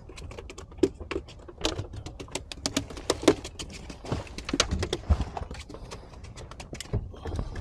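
A fish flopping and slapping on the boat deck: a quick, irregular run of knocks and taps.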